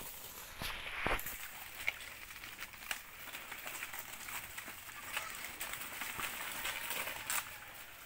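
A herd of black native pigs feeding on fresh banana leaves: irregular crackling and rustling of the leaves as they chew and trample them, with a single knock about a second in.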